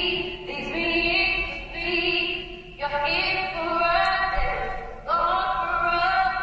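Wordless choral singing in long, held phrases, with new phrases entering about three and five seconds in.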